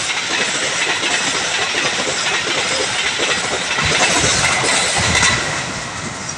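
Train passing close by, its wheels running over the rails with a dense rushing clatter that eases off in the last second or so as it moves away.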